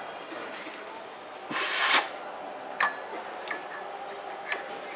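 A half-second spraying hiss that swells and cuts off about a second and a half in, then three light sharp clicks of tools on metal engine parts.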